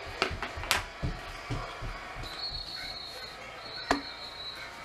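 Kitchen handling noises: a quick run of sharp knocks and clatters in the first second and a half, and a single louder knock near the end. In between, a faint high-pitched steady tone sounds twice with a short break.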